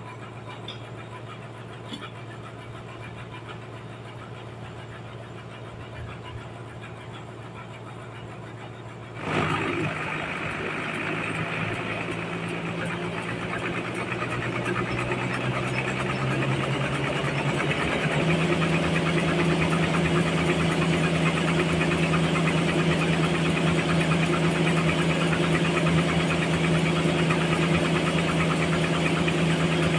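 Sawmill machinery running with a low hum. About nine seconds in it suddenly gets louder and runs up, its pitch stepping up twice before it holds steady.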